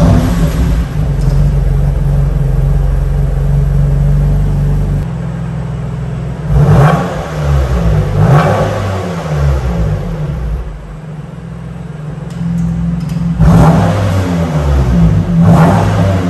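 BMW M2 Competition's twin-turbo straight-six running through a Remus axle-back sports exhaust. It idles steadily after starting, the idle drops about five seconds in, and then it is revved in sharp blips: two around seven and eight seconds in and two more near the end.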